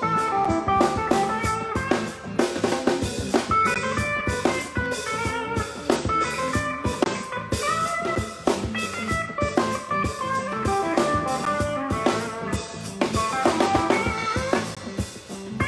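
Electric guitar played through a small amp, improvising funky lead lines with some bent notes over a live drum kit groove.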